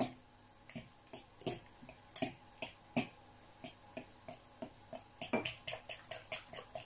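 A metal utensil stirring watery minced meat in a glass bowl: irregular clicks and taps, a few a second, where it knocks the bowl, mixed with wet squelches from the loosened mince.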